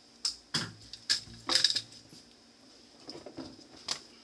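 Jetting fittings being handled: a series of sharp clicks and clattering knocks of hard plastic and metal, loudest about a second and a half in, with one last click near the end.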